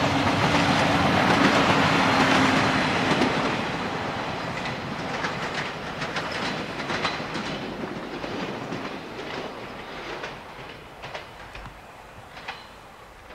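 Siemens Desiro diesel multiple unit running by and away: engine and wheel noise with a steady hum loudest in the first few seconds, then fading. Wheels click over rail joints and points as it recedes.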